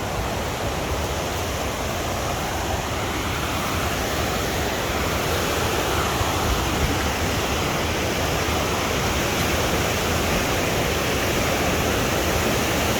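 Waterfall rushing, a steady dense roar of falling water.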